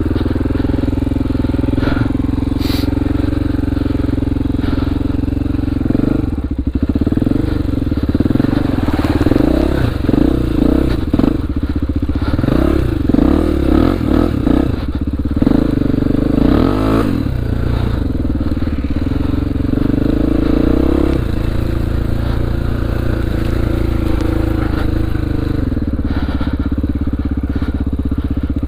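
2002 Honda XR400R's air-cooled single-cylinder four-stroke engine running, its revs rising and falling again and again for about ten seconds in the middle, then settling back to a steady run.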